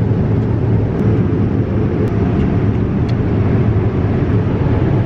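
Airliner cabin noise: the steady, low-pitched drone of the jet engines and the air rushing past the fuselage.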